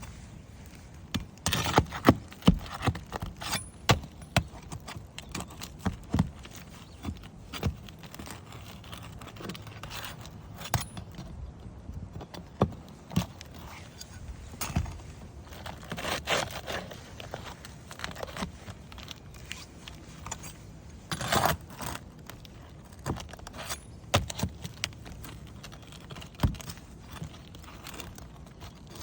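Irregular clicks, knocks and scraping of hands and tools working on asphalt roof shingles, with a few longer scrapes among the sharp taps.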